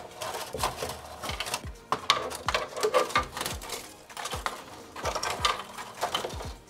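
Wiring and plastic connectors being unplugged and pulled out of a BCN3D Sigma 3D printer's electronics bay: irregular clicks, light knocks and cable rustling.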